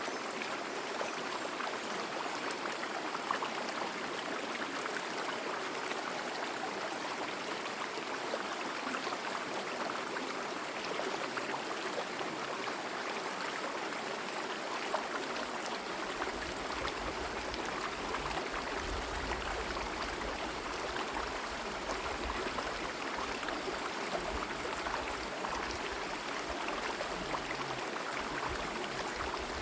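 Small forest stream running over rocks: a steady babble flecked with tiny splashes. A low rumble joins underneath about halfway through.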